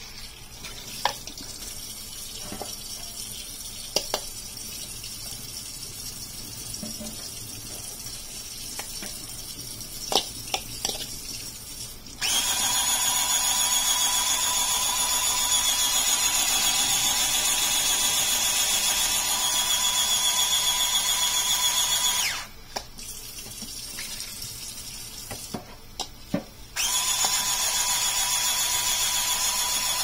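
Handheld electric dish-scrubbing brush whining steadily as its brush head spins against a bowl. It switches on about twelve seconds in, cuts off suddenly near 22 seconds, and starts again near 27 seconds. Before and between these runs, tap water runs into the sink with a few clicks and knocks of handling.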